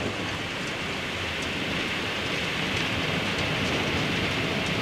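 Boeing 777 landing rollout heard from the flight deck: a steady roar of the engines in reverse thrust over the rumble of the wheels on the runway, slowly growing louder.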